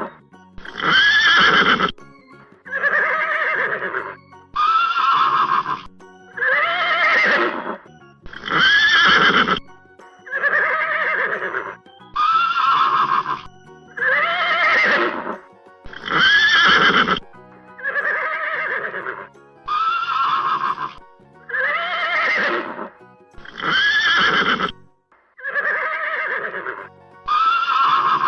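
Horse whinnying over and over, a looped sound-effect sample of about fourteen calls, each around a second long with a pitch that rises and falls, separated by short gaps.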